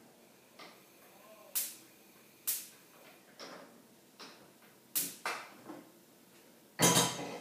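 Kitchen handling sounds at the counter and stove: a string of separate sharp taps and knocks, roughly one a second, then a louder clatter near the end as a frying pan is handled.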